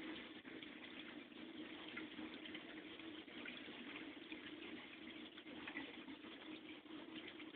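Faint, steady trickle and fizz of circulating water in a fish tank.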